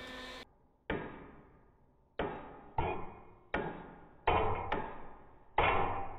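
A hammer tapping a steel shrinker-jaw piece clamped against a steel plate, seven sharp strikes each with a short metallic ring, setting the piece in position before it is welded.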